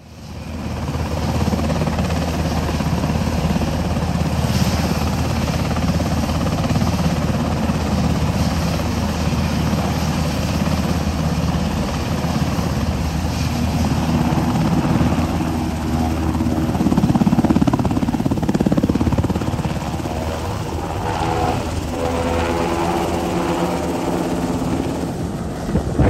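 Sikorsky UH-60M Black Hawk helicopter running on the ground and then lifting off: a steady low rotor beat over turbine noise, with higher tones building through the second half as it takes off and climbs.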